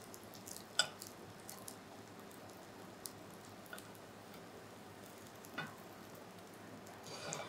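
Spring rolls shallow-frying in oil in a nonstick frying pan: a faint, steady sizzle, with a few light clicks as metal tongs turn the rolls.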